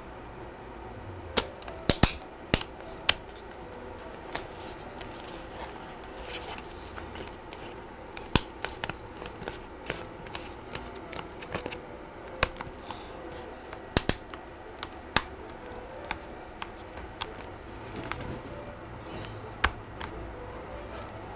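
Irregular clicks and light knocks of a laptop screen assembly being handled, its metal hinges and lid edge tapping against each other and the work mat, with a few sharper clicks standing out.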